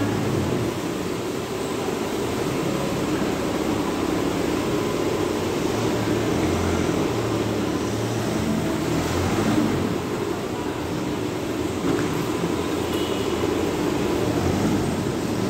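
Forklift engine running as it works, a steady mechanical drone whose low note swells a few times.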